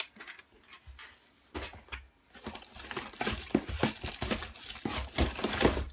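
Packaging crinkling and rustling with scattered light knocks as items are dug out of a box of merchandise. Sparse at first, it gets busier about halfway through.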